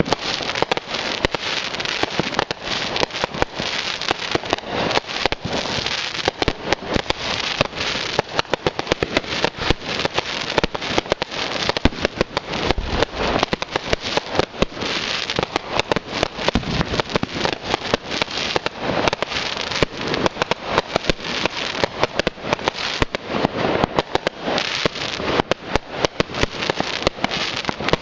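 Fireworks going off in a dense, continuous barrage of rapid sharp bangs and crackles, many per second, without a pause.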